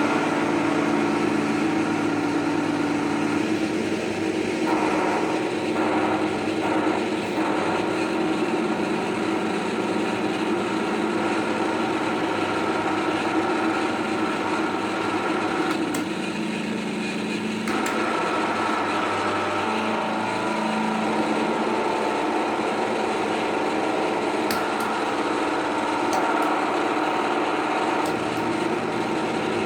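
Continuous harsh noise drone from chained fuzz, overdrive and delay effects pedals: a dense, engine-like buzz with several steady tones that shifts in character a few times.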